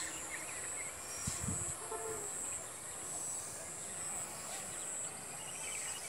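A steady, high-pitched chorus of insects, such as crickets, trilling without a break in grassland.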